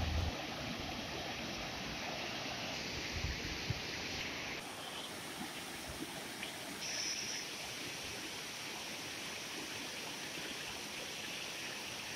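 Mountain stream rushing over rocks and small cascades: a steady rush of water, its tone shifting about four and a half seconds in.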